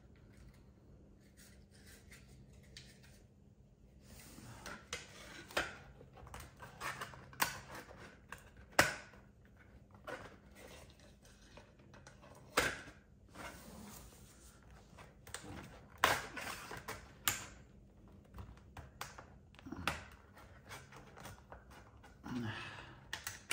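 Sections of plastic-roadbed model train track being handled and forced together: scattered clicks and knocks, with several sharper snaps, as the stiff track joints resist being pushed home.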